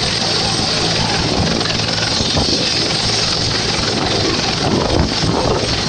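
Helicopter running on the ground with its main rotor turning: a loud, steady turbine whine over the rotor's pulsing beat.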